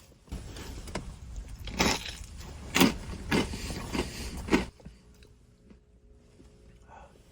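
Close-up crunchy chewing of rolled tortilla chips (Takis) with nacho fries, with five loud crunches over a few seconds, then it stops.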